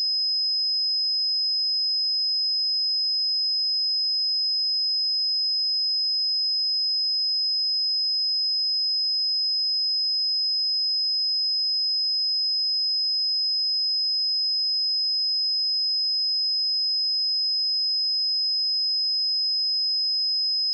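A pure 5071 Hz sine test tone, one steady high-pitched note held at constant level throughout.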